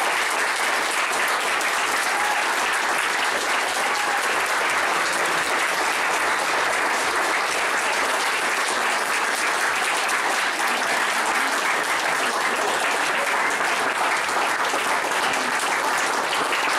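Audience applauding steadily, with a few faint voices in the crowd.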